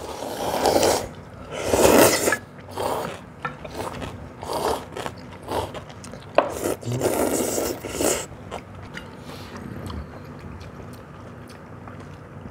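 People slurping cold soy-milk noodles (kongguksu), a run of short noisy slurps one after another that thin out in the last few seconds.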